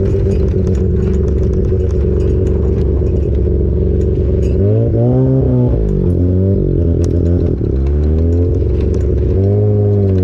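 Mazda 13B rotary engine in a sandrail running at low revs while driving, rising and falling once in pitch about halfway through and picking up again near the end, with scattered clicks and rattles. The owner says the engine had low compression and would not rev high.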